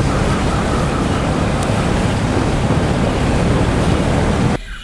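Loud, steady rushing of wind on the microphone, cutting off abruptly near the end.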